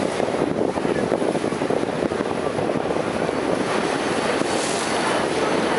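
Steady rushing noise aboard a moving river cruise boat, with the boat's running and water along the hull blended with wind on the microphone.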